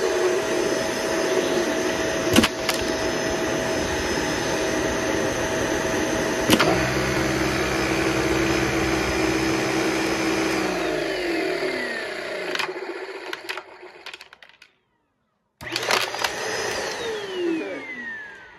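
Vacuum cleaner with a lit brushroll head running steadily on carpet, with two sharp clicks in the first seven seconds. About eleven seconds in it winds down with a falling whine, cuts out briefly, then starts again and winds down once more near the end.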